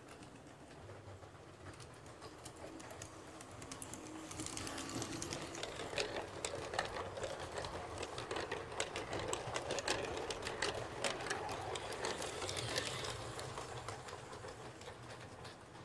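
LGB garden-scale model train with passenger coaches running past on the track, its wheels rattling and clicking rapidly over the rails and rail joints. It grows louder about four seconds in, is loudest for the middle stretch, and fades near the end as the train runs away.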